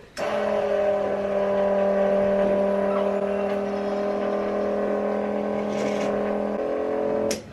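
Electric goat milker's vacuum pump motor running with a steady hum. It starts suddenly, its pitch shifts slightly about six and a half seconds in, and it cuts off just before the end.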